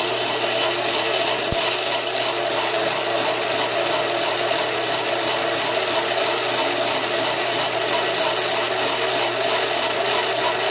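Crystal toy electric sewing machine from 1960s Japan running steadily, its small motor and needle mechanism making an even mechanical whir at constant speed.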